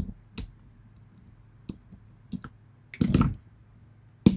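Small metal clicks and taps from a pin-tumbler lock cylinder and tools being handled as it is taken apart, with a longer clatter about three seconds in and a sharp click near the end.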